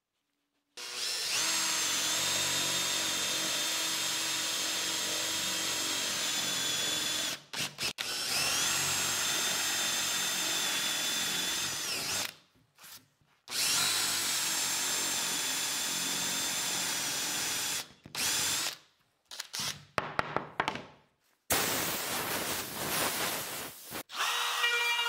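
Cordless drill boring into plywood. It runs three times for several seconds each, rising to a steady whine and then winding down, and then gives several short bursts. Near the end a different motor starts with a steadier, lower-pitched whine.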